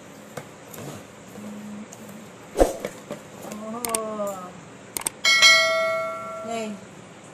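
A notification-bell chime sound effect from a subscribe-button animation. It rings once, about five seconds in, just after a couple of small clicks, and fades away over about a second and a half. A sharp knock comes about two and a half seconds in.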